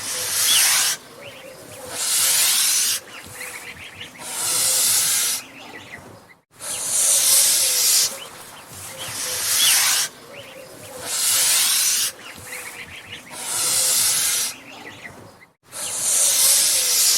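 Angry goose hissing loudly, in sharp hisses of about a second each, about one every two seconds, with quieter breathy noise between them.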